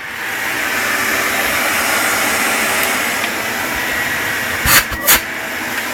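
Numatic Henry vacuum cleaner running steadily, freshly reassembled after its motor unit was taken apart and switched on to test that it still works. Two short knocks come about four and three-quarter seconds in.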